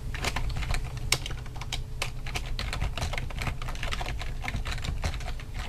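Typing on a computer keyboard: quick, irregular keystrokes, several a second, over a low steady hum.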